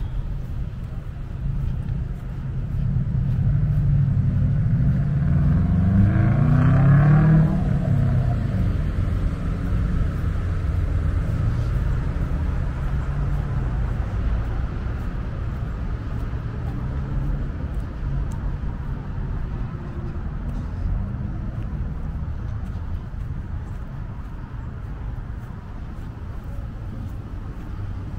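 Steady road-traffic rumble, with one vehicle passing close. It grows louder from about four seconds in, peaks around seven seconds as its engine pitch sweeps by, then fades back into the traffic.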